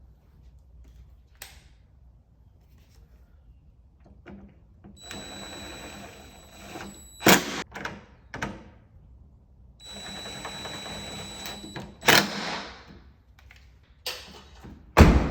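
A cordless power tool running in two bursts of about two seconds, driving the door handle's mounting bolts back in, each burst ending in a sharp click. A heavy thump near the end.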